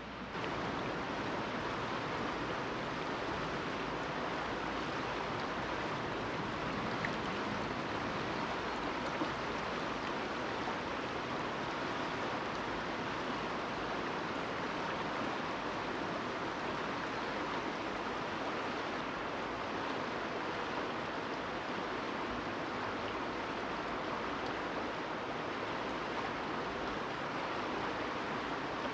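Fast-flowing river: a steady, even rush of running water.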